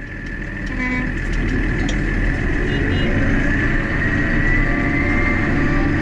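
Claas tractor engine running steadily as it drives along a snowy road pushing a front snow plough. The sound fades up over the first second, and a thin high whine rises slightly in pitch about four to five seconds in.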